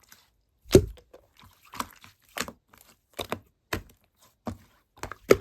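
Slime being pressed and worked by hand, giving sharp wet pops and clicks about twice a second, the loudest near the start.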